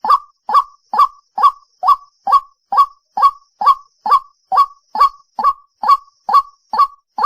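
White-breasted waterhen calling: a single loud "kook" note repeated at a steady, even pace, a little over two per second.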